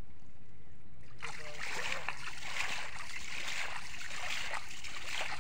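Water splashing and sloshing as a fishing net is hauled by hand through shallow water, starting about a second in and continuing irregularly.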